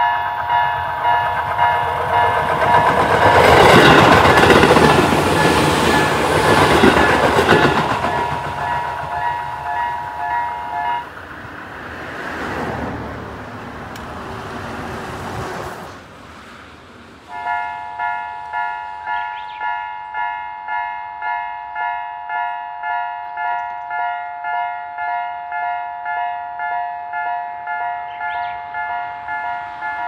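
Electronic Japanese level-crossing bell ringing a high-pitched, repeating ding a little over once a second. A train passes loudly in the first few seconds. The bell stops about 11 s in and starts again about 17 s in.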